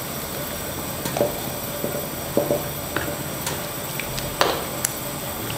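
Metal ladle moving through a pot of simmering beef broth, skimming and scooping, with liquid sloshing and a few light knocks of the ladle against the stainless steel pot.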